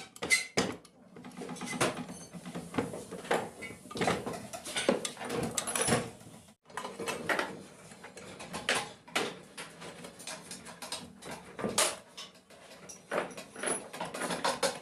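Irregular metal clinks, taps and scrapes as hand tools and sewing-machine parts are handled and fitted on a workbench.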